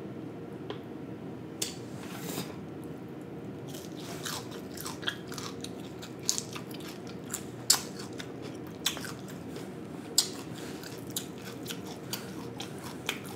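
Close-miked eating of whole fried snapper: irregular crunching and wet mouth clicks as the fish is chewed, over a low steady hum.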